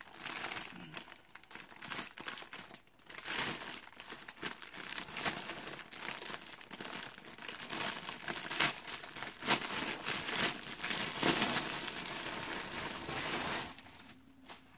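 Plastic packaging crinkling and rustling as a shiny mailer bag and a clear plastic bag are opened and handled, in dense crackly bursts that die away about a second before the end.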